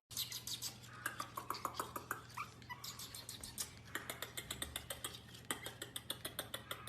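A puppy making a few short, high whimpering whines over rapid, irregular clicking and tapping, several clicks a second; the whines fall mostly in the first half.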